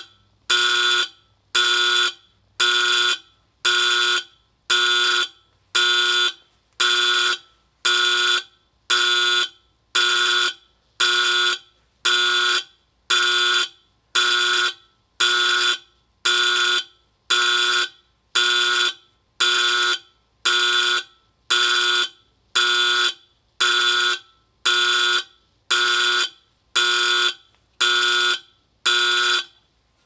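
Edwards 51R-N5 Adaptabeacon warning beacon's alarm sounding short, loud pitched blasts in a steady rhythm, about one a second, each starting sharply and fading quickly.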